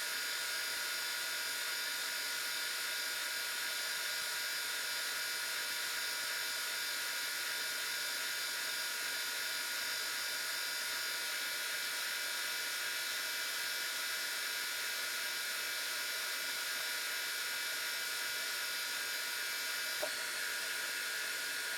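Metal lathe running steadily, turning a bar down to diameter: a constant high whine and hiss with several fixed tones, with one small click near the end.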